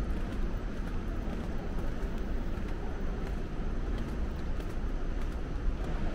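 Steady rushing noise with a deep rumble underneath, even and unbroken throughout.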